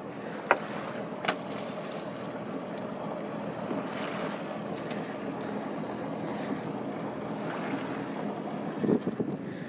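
Steady wind and water noise on the deck of a sailboat under way, with two sharp clicks, about half a second and just over a second in.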